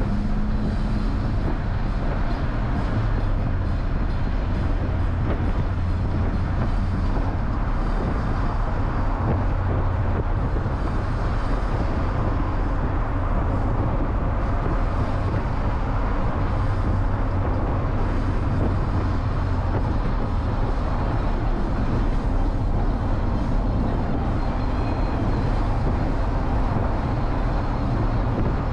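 Cabin noise of a 1988 Mitsubishi Starion Turbo under way: the turbocharged 2.6-litre four-cylinder engine running with a steady low hum under road and wind noise.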